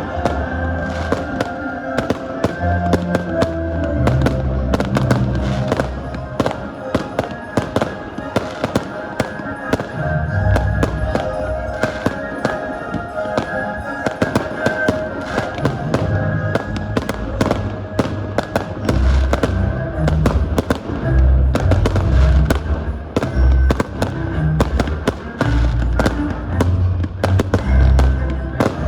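Fireworks going off in rapid, continuous succession, sharp bangs and crackling with deep booms, heavier in the second half, over music with held tones played through loudspeakers.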